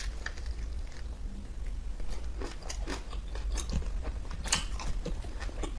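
Close-up biting and chewing of a small white candy, with many short crisp crackles as it is eaten; the sharpest crunch comes about four and a half seconds in.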